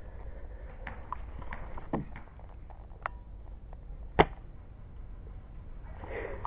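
A single sharp snap of a shot from a Well MB06 bolt-action airsoft sniper rifle about four seconds in, with a few fainter clicks scattered before it.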